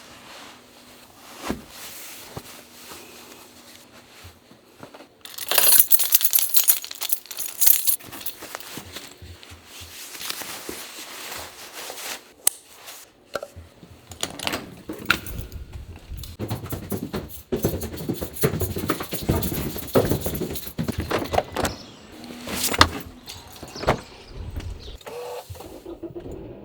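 Irregular metallic jangling and rustling with scattered clicks and knocks. It is loudest and most crackly from about five to eight seconds in, then turns to low rumbling handling noise with sharp knocks.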